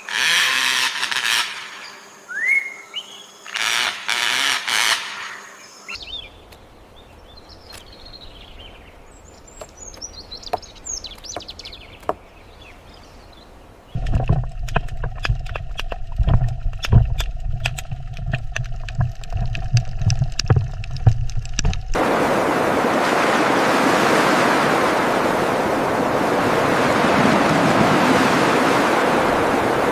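A string of separate short sound clips: loud calls with rising whistled notes, then faint bird chirps, then rapid clicking over a low hum, and for the last eight seconds a steady hiss.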